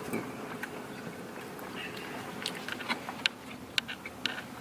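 Someone eating small crunchy snack balls, with scattered crunches and clicks that come more often in the second half, over a steady low hum of the car's cabin.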